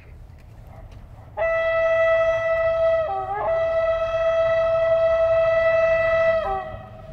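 Horn of a Serbia Cargo class 661 diesel locomotive sounding on an approaching freight train: one long, steady blast of about five seconds. It falls in pitch briefly near the middle and again as it cuts off.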